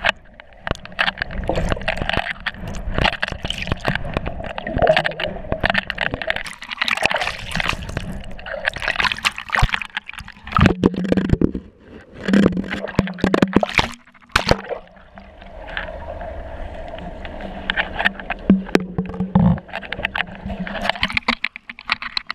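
Underwater pool sound heard through a GoPro: water gurgling and bubbling around the camera as a swimmer moves, with many sharp clicks and knocks. A steady low hum runs through the middle stretch.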